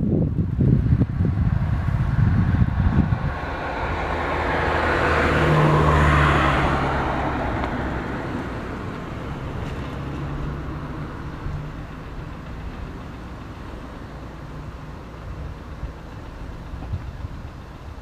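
Wind buffeting the microphone for the first few seconds, then a car passing by, swelling to a peak about six seconds in and fading to a low steady hum.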